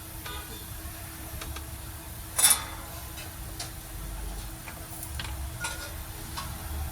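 Light, irregular clicks and taps of soldering tools against a phone's circuit board while the pins of a USB Type-C charging port are being soldered, with one sharper, louder click about two and a half seconds in.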